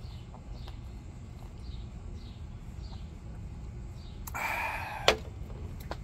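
A bird chirps repeatedly and faintly over a low background rumble. About four seconds in comes a breathy exhale after a swig of beer, followed by a sharp clink as a glass beer bottle is set down on a glass tabletop.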